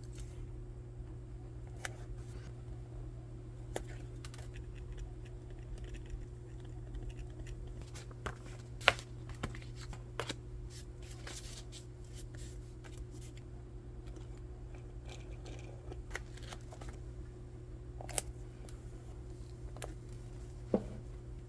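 Hands working on a paper planner with stickers and stationery: scattered small clicks, snips and paper rustles, a few sharper taps standing out, over a steady low electrical hum.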